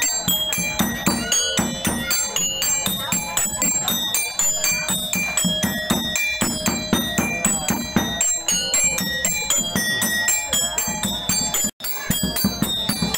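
Music with a fast run of bright, bell-like notes over a steady low pulse, cutting out for an instant near the end.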